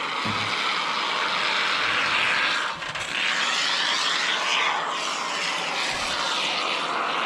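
Aerosol spray can spraying onto the back of a foam insulation board: one continuous hiss that cuts off near the end.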